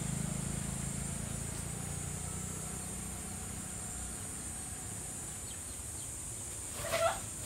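A low engine hum, like a passing vehicle, fades out over the first few seconds over a steady high insect drone. Near the end a dog barks once.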